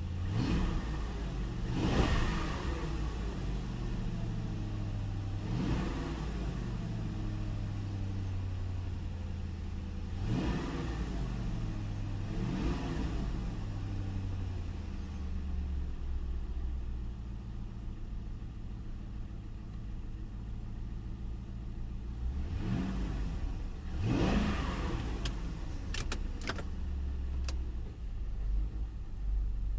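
Lincoln Town Car's 4.6-litre V8 idling, blipped up and down about six times, running nice and smooth now that a new coil pack has cured the misfire on number 8 cylinder. A few sharp clicks sound near the end.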